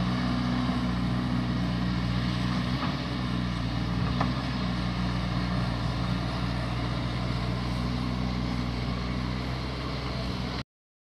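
Caterpillar 320D hydraulic excavator's six-cylinder diesel engine running steadily as the machine works, with a couple of faint knocks. The sound cuts off suddenly near the end.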